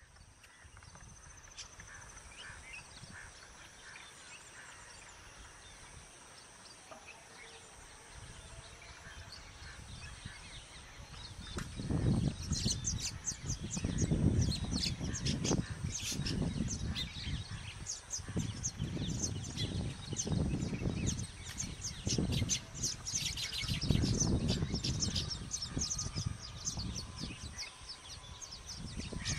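Baya weaver birds chirping and chattering. Faint at first, then from about twelve seconds in a dense run of rapid high chirps, with low rumbling surges underneath.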